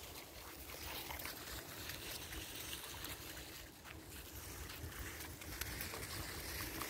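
Dry fallen leaves rustling and crackling as feet and the wheels of a dog wheelchair move over them, with many small crackles throughout.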